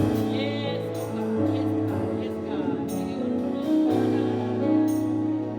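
Church background music: sustained keyboard chords over a low bass note, the chords changing every second or two.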